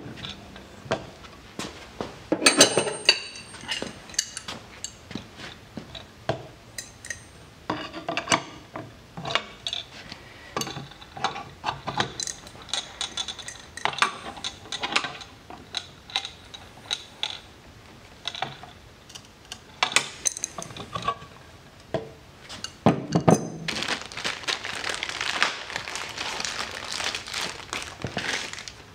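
Wrenches and a metal bulkhead fitting, washer and nut clinking and tapping against a fuel cell fill plate as the nut is fitted and tightened: scattered sharp clicks and knocks. Near the end comes a few seconds of denser rustling noise.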